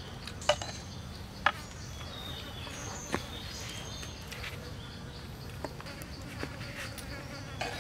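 Outdoor ambience of insects buzzing, with a few sharp clicks in the first three seconds.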